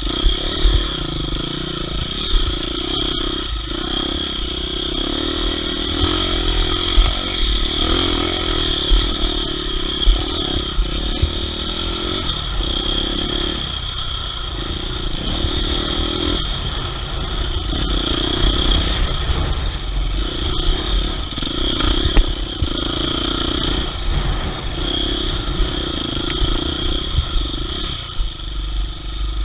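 Off-road trail motorcycle engine running under load, its revs rising and falling every second or two as the bike is ridden over a muddy trail, with a few sharp knocks from the rough ground.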